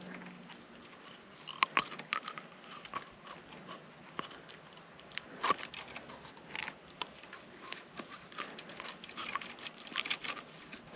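Irregular close clicks and crackles of hands handling a small shark and fishing line while working a hook free from its mouth, with a few sharper clicks.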